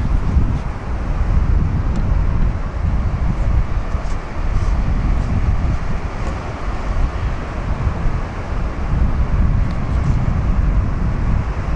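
Strong coastal wind buffeting the microphone in uneven gusts, over a steady wash of ocean surf breaking on the rock shelf.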